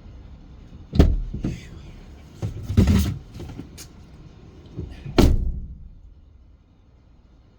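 Car door and handling clunks over a low rumble: a sharp thump about a second in, a cluster of knocks around three seconds, and a loud door slam about five seconds in, after which the rumble drops away.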